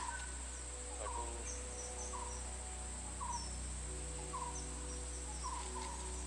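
A bird repeating a short falling call about once a second, with scattered higher chirps from other birds and a steady high-pitched insect drone.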